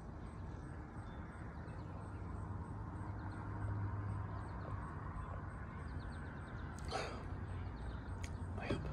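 A man sipping beer from a glass: quiet open-air background with a steady low hum, and two short mouth or breath sounds near the end as he finishes the sip, the second falling in pitch.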